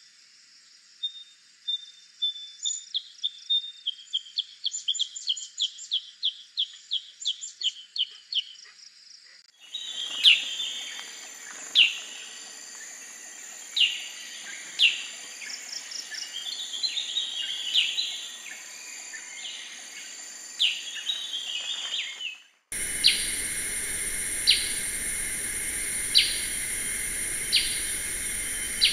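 Black-headed bulbul calls from three spliced recordings. First comes a quick run of rising chirped notes. After a cut about ten seconds in, sharp whistled notes and twittering follow, and after a second cut near the end, single sharp calls come about every second and a half over a steady high buzz.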